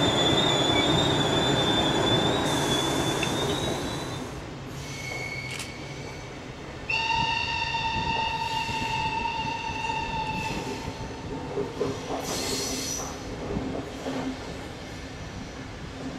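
A train moving along the track: wheels squealing with a high steady whine for the first few seconds, fading out by about four seconds in. Then, about seven seconds in, a horn sounds one long steady note for about three and a half seconds.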